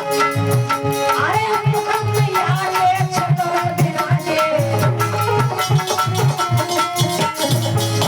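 Instrumental interlude of Alha folk music: a hand drum beats a steady rhythm under sustained melody notes.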